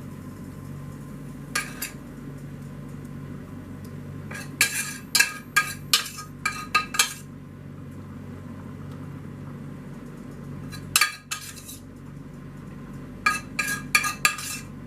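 A metal spoon clinking and scraping against pans and a baking dish in groups of quick knocks: a pair about two seconds in, a run from about four and a half to seven seconds, one near eleven seconds and another run near the end. A steady low hum runs underneath.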